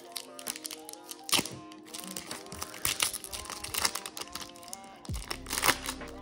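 Background music with steady held notes, over which come repeated sharp clicks and crinkles from Pokémon trading cards and booster-pack wrapping being handled. Two clicks stand out, about a second in and near the end.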